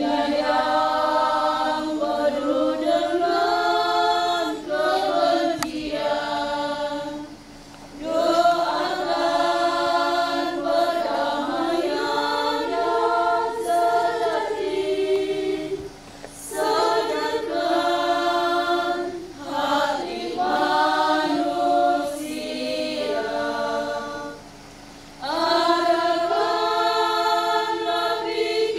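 Women's choir singing unaccompanied, in long phrases with brief pauses between them.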